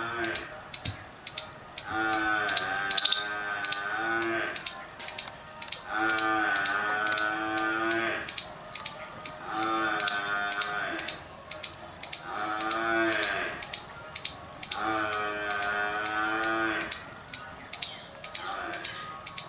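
Indian palm squirrel giving its loud alarm chirping: a steady run of sharp, high chirps at about three a second. Mixed in is a lower, drawn-out wavering call, about two seconds long, that comes back every three to four seconds.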